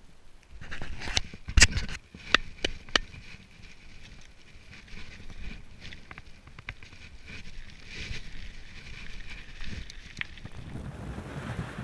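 Bulls Copperhead 3 mountain bike rattling and clicking on a gravel track, heard through a GoPro's microphone, with several sharp knocks in the first few seconds. Near the end wind on the microphone and a low rumble come in as the bike picks up speed.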